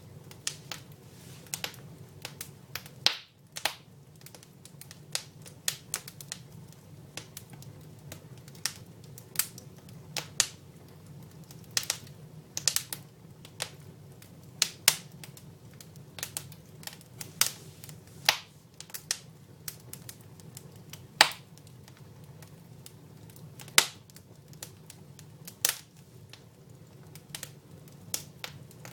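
Dry firewood burning in a fireplace, crackling with sharp, irregular pops, some much louder than the rest, over a low steady hum.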